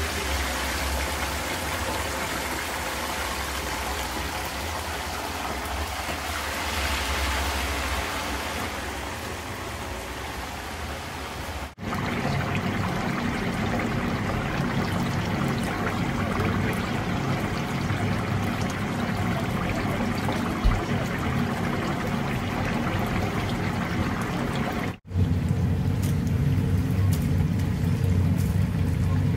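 Batter-coated whole chickens deep-frying in a commercial fryer: hot oil bubbling and sizzling steadily. The sound breaks off and resumes twice, and a steady low hum runs under the frying after the first break.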